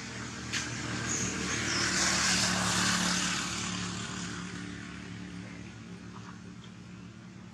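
Drone of a passing engine, swelling to a peak about two to three seconds in and then fading away, with a short sharp click about half a second in.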